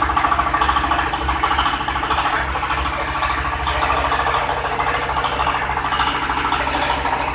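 Palm sugar grinding machine running steadily, with a fast even pulse.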